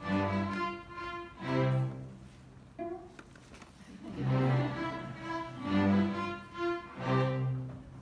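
Student string orchestra of violins, violas, cellos and double bass playing bowed chords in short swelling phrases, with a strong accented chord about every one and a half seconds and quieter stretches between.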